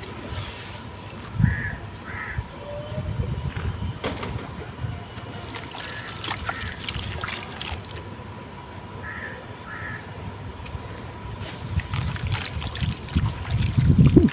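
Crunchy sand-cement blocks crumbling, wet and gritty, with splashing, in irregular bursts that get louder near the end. A bird calls in short pairs of cries in the background, twice.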